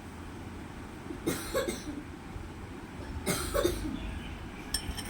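A person coughing in three short bouts, over a steady low hum.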